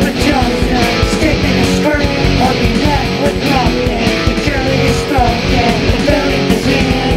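Rock-style band music with guitar and drums, playing continuously at a steady loudness.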